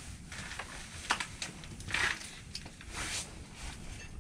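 A few short rustles and scrapes of an angler handling a freshly caught yellow perch and shifting on the ice, over a low steady rumble.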